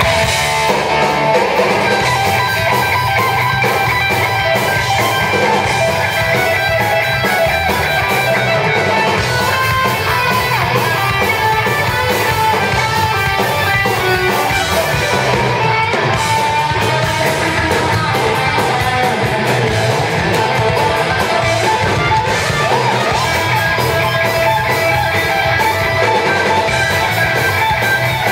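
Live heavy metal band playing an instrumental passage led by electric guitar, without vocals.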